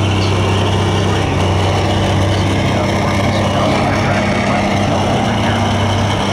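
Limited Pro Stock pulling tractor's diesel engine running loud and steady, holding one pitch.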